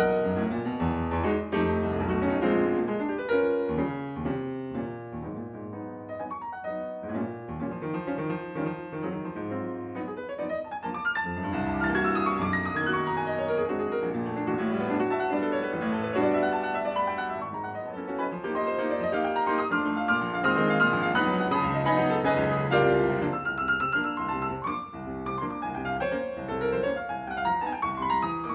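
Solo classical piano piece played on a Steinway & Sons grand piano, with dense, continuous runs of notes and chords.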